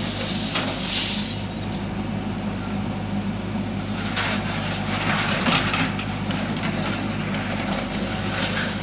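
Heavy diesel engine running steadily at a low, even pitch, with brief hissing, rushing noises about a second in and again between about four and six seconds in.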